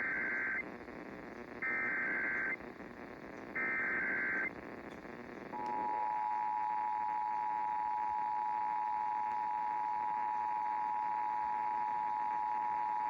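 Emergency Alert System test received over the air: three short bursts of the SAME header's screechy digital data tones, about two seconds apart with hiss between them. About five and a half seconds in, the EAS attention signal begins, a steady two-tone 853/960 Hz beep.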